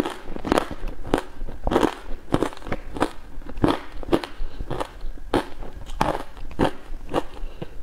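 Mouthfuls of ice being bitten and chewed close to the microphone, a crisp crunch a little under twice a second in a steady rhythm.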